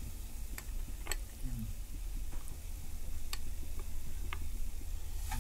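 Steel spatula clinking against the pan and glass serving bowls while beetroot halwa is scooped out: about six separate, sharp clicks, over a low steady hum.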